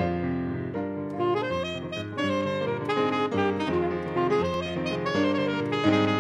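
Alto saxophone playing a melody over chords from a keyboard, live.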